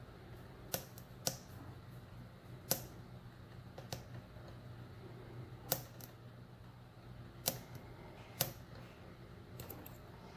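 A pick working inside a Titan euro profile cylinder padlock: about eight sharp, irregular clicks of the pick against the pins and keyway as it probes for a stubborn pin that won't set, over a faint steady hum.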